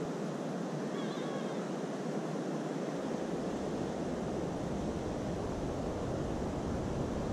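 Ocean surf breaking on a sandy beach, a steady rush of noise. From about three seconds in, a low wind rumble on the microphone joins it.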